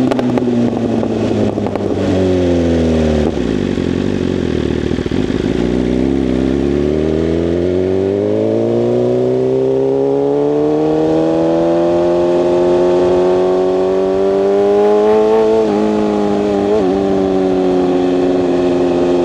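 BMW S1000RR sport bike's inline-four engine under way: its note falls over the first few seconds as the bike slows, then climbs steadily for several seconds as it accelerates, wavers briefly, and settles to a steady cruise.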